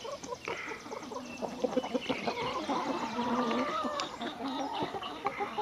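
Hens clucking close by, a run of wavering calls that is busiest in the middle, with a few sharp taps of beaks pecking on the wooden table.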